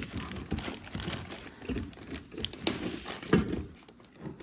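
Irregular clicks, knocks and rustling of hand tools being worked: a wrench turning the screw of a jaw-type bearing puller on a pool pump motor shaft. The loudest knock comes about three and a half seconds in.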